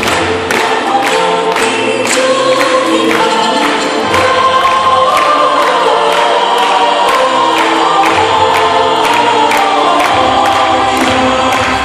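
A choir singing a Christmas song over accompaniment with a steady beat.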